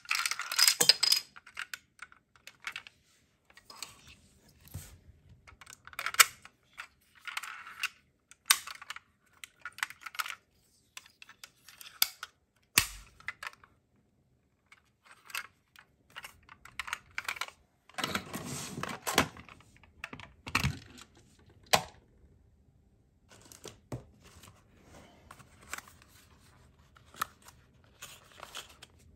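Die-cast toy ambulances being handled: scattered light clicks and taps of small metal and plastic parts, with one sharp click about thirteen seconds in and a longer stretch of rustling about eighteen seconds in.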